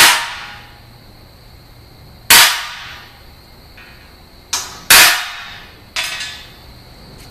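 Ball-peen hammer striking a center punch on steel angle iron to mark hole locations. There are three sharp blows about two and a half seconds apart, with two lighter taps in the second half, each ringing briefly.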